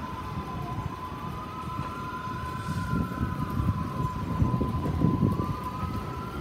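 An R142-type subway train approaches on elevated track, its rumble growing louder. Over it an emergency-vehicle siren wails, slowly rising and falling, above a steady high tone.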